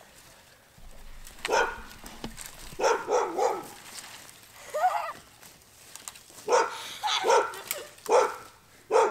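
A dog barking in short bursts, several times over.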